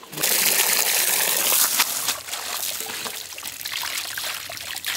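Water draining out through a woven cane basket of washed tiny fish as it is lifted from the wash pot: a sudden heavy rush of water that tapers over a few seconds to a trickle.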